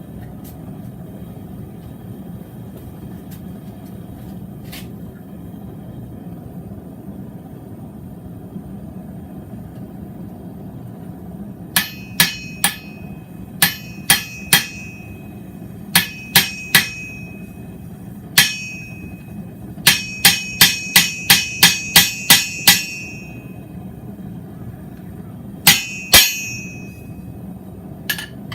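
Blacksmith's hammer striking steel on an anvil, each blow ringing, driving a newly made tool into the mild-steel shucker handle to cut its bottle-opener notch. After about twelve seconds of a steady low hum, the blows come in short groups of two or three, then a quick run of about nine, then a few more near the end.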